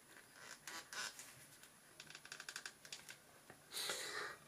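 Faint small plastic clicks and fibre rustling as a doll wig's plastic peg is worked against the hole in the back of a small plastic doll's head: a few scattered clicks, then a quick run of clicks, and a louder rustle of the tinsel wig near the end.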